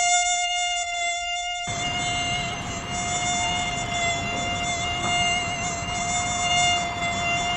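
Mosquito in flight, its wingbeats giving a steady, high, thin whine at one pitch with a slight waver. About two seconds in, a steady hiss joins under the whine.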